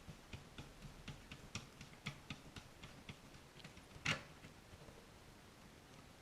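Light, irregular metallic clicks a few times a second from a tool working at a board standoff that spins in place as it is being removed, with one sharper click about four seconds in.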